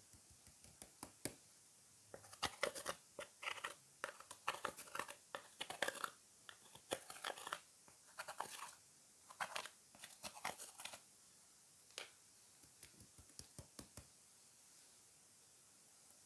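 Slime worked by hand, giving a run of small clicks and crackling pops, densest in the first half and thinning out after about eleven seconds.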